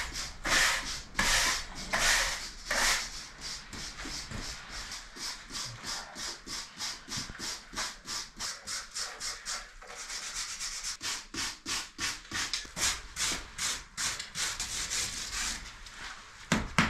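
Stiff brushes scrubbing dried lime-and-sand mortar off a stone floor in repeated scraping strokes, brushing it back to reveal the stones. There are slower, broader strokes for the first few seconds, then quicker ones about three a second, louder again near the end.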